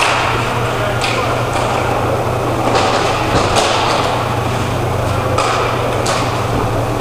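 Roller hockey play: several sharp, irregular clacks of sticks hitting the puck and the plastic tile floor, over a steady low hum.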